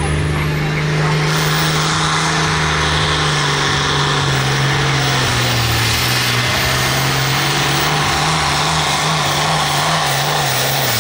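Turbocharged diesel engine of an International pro field pulling tractor running wide open as it drags the sled. The deep, steady engine note sags slightly under the load partway through, with a high turbo whine rising at the start. The engine note drops right at the end as the throttle comes off.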